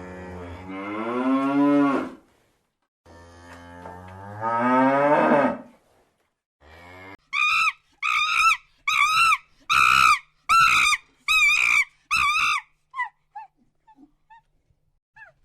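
A cow mooing: two long moos that rise in pitch. They are followed by a quick run of about eight short, high-pitched calls from another animal, then a few faint chirps.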